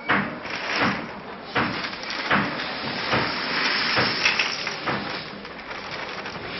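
Repeated strokes of a hand tool working concrete, roughly one every three-quarters of a second, over a steady hiss.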